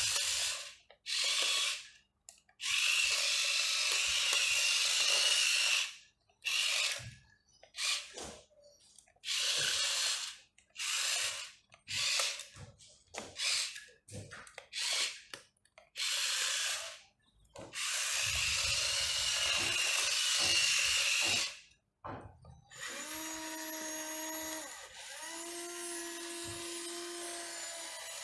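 Electric motors and gearboxes of an Aohai toy RC excavator whirring in repeated stop-start bursts, some a fraction of a second and some several seconds long, as the boom, bucket and cab are driven from the remote. Near the end the sound turns to a steadier pitched whine in two stretches.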